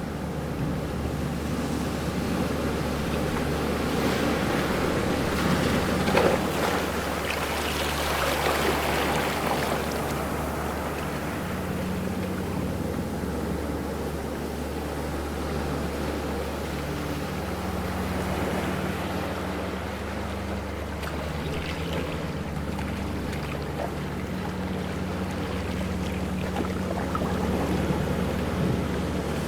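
Ocean waves washing and breaking in a continuous wash, swelling with a larger surge a few seconds in and again around twenty seconds in. A steady low hum runs underneath.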